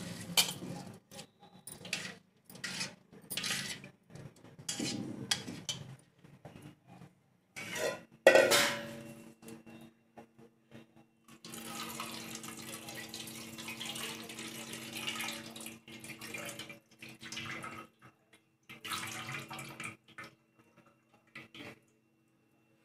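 Soaked rice tipped and scraped from a steel bowl into a steel pot of boiling water: irregular splashes and clinks of steel, loudest about eight seconds in, then the pot bubbling steadily at the boil.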